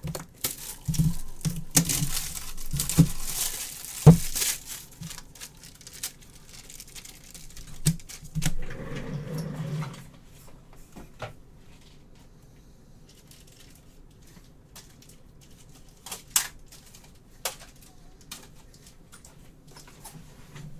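Crinkling and rustling of handled wrapping with scattered taps and clicks, busy for the first few seconds and again briefly in the middle, then only occasional clicks.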